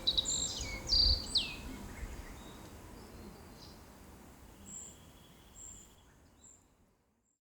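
Wild songbirds chirping and singing in woodland over a low background hiss, busiest in the first second and a half, then a few faint high notes; the sound fades out to silence near the end.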